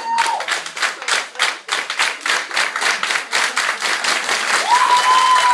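Audience clapping and applauding, at first in separate claps and then building to fuller applause. About four and a half seconds in, a long, high cheering voice joins.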